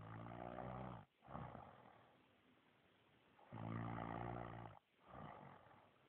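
A man snoring in his sleep: two long snores with a low buzzing pitch, about three and a half seconds apart, each followed by a short, softer breath.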